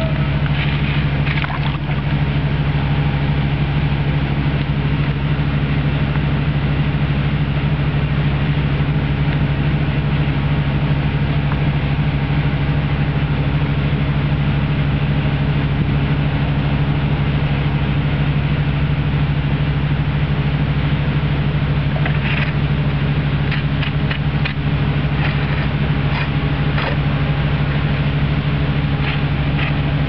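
A steady low motor hum runs throughout. Over it, in the last several seconds, a stick splashes and knocks against stones in shallow river water a few times as it stirs the bottom.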